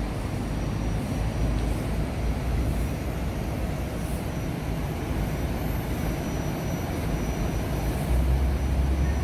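Street traffic and a stationary MAN double-decker bus's diesel engine running at the stop: a steady low rumble, heavier near the end, with a faint high steady whine over it.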